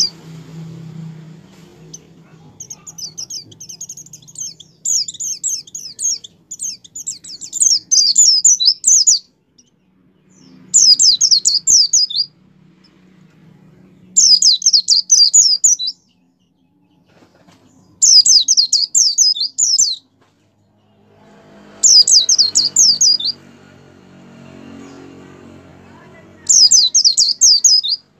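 White-eye (pleci) singing vigorously: six bursts of rapid, high-pitched trilling made of fast falling notes, the first building up over several seconds and the later ones a second or two each, with short pauses between. A low rumble sounds in the background during the last few seconds.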